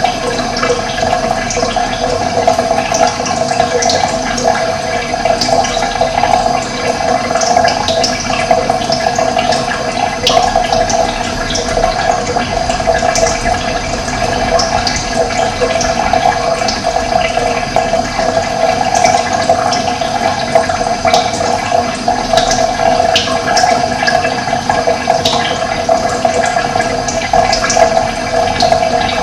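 Running water, a steady rushing flow with no break, with short high chirps scattered through it.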